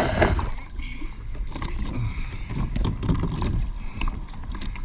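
Water slopping against a plastic sea kayak's hull, with a sharp knock right at the start and small bumps and knocks as the kayak is handled from the water.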